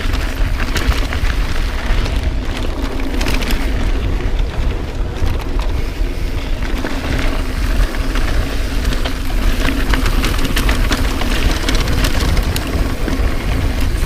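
Heavy wind buffeting on the camera microphone, a constant low rumble, over tyre noise on a dirt trail, while a Santa Cruz 5010 mountain bike descends at speed. Frequent clicks and rattles come from the bike's chain and frame and from stones.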